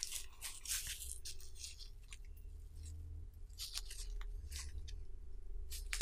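Gloved hands handling corroded, broken pocket knives: faint, scattered rustling and scraping of glove fabric and rusty metal, over a faint steady hum.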